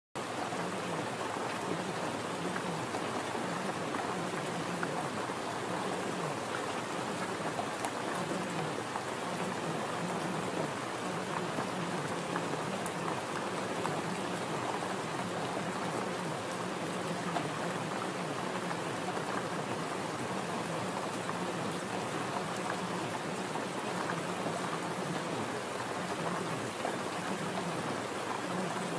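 Steady rain falling: an even hiss with fine scattered drop patter that holds unchanged throughout.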